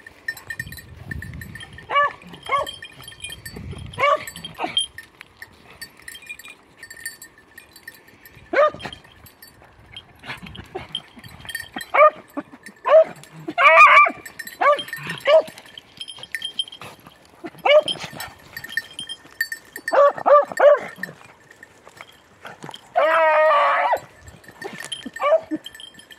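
Beagles giving tongue on a hare's scent: short, high yelps and barks in scattered clusters, with one longer drawn-out bay about 23 seconds in. This baying is the hounds' signal that they are working a hare's trail.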